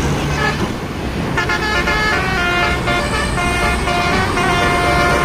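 Indonesian bus 'telolet' horn, a Basuri multi-tone horn, playing a jingle of short held notes that step up and down in pitch. It starts about a second and a half in, over steady highway traffic noise.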